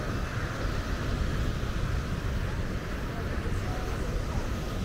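Outdoor beach ambience: wind rumbling steadily on the microphone over a low wash of people's voices.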